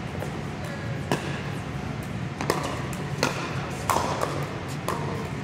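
Pickleball paddles hitting a plastic pickleball in a rally: about half a dozen sharp pops at uneven intervals, echoing in a large indoor hall.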